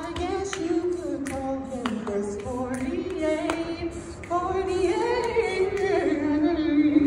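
A group of voices singing one slow melody unaccompanied, with a few sharp clicks now and then.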